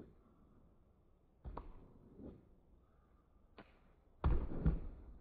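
Bare feet thumping on an inflatable air track: a few lighter thuds, then a loud double thump just after four seconds in as a backflip lands on the mat.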